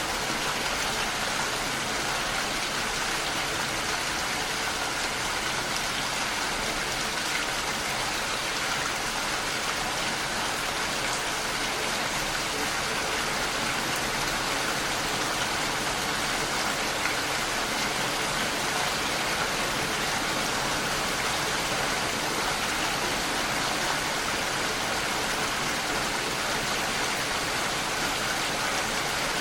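Heavy rain falling steadily on a window, an even hiss of dense raindrops with no let-up.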